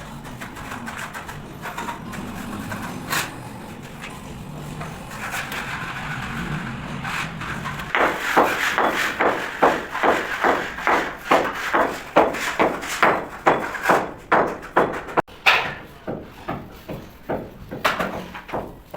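Steady rhythmic strokes of hand work, about two a second, starting about eight seconds in after a stretch of low, uneven work noise.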